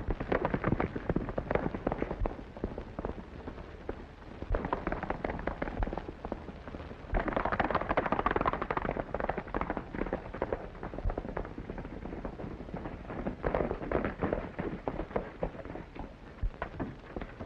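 Horses galloping: a dense, rapid clatter of hoofbeats, loudest about seven seconds in.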